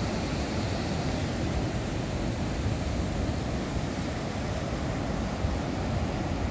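Ocean surf breaking and washing up a sandy beach: a steady rush of water with a heavy low rumble.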